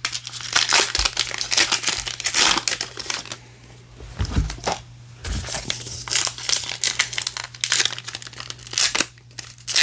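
Trading-card pack wrappers crinkling and tearing as 2022 Topps Gypsy Queen packs are ripped open by hand, in rapid bursts of rip, rip, rip with a short lull about three and a half seconds in.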